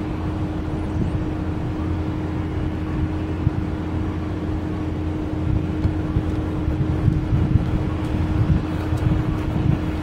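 Wind buffeting the microphone in an uneven low rumble, with a faint steady low hum underneath that fades near the end.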